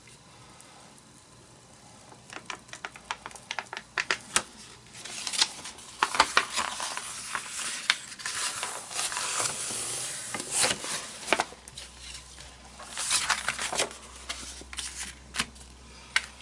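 Paper rustling and crackling against a tacky gel printing plate as a print is rubbed down and pulled off, with scattered light clicks and taps. There are two longer spells of crackling, one in the middle and one shorter one near the end.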